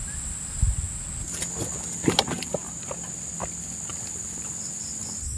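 Night insects, crickets, chirring in a steady high-pitched drone, with a run of sharp clicks and light taps about one to three seconds in.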